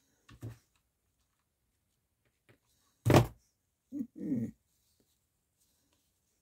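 A dog barking: one loud, sharp bark about three seconds in, then a shorter bark that trails off in pitch about a second later, with quiet around them.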